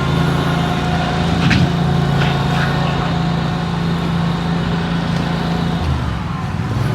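A heavy engine running steadily, its pitch dropping about six seconds in, with a few light knocks over it.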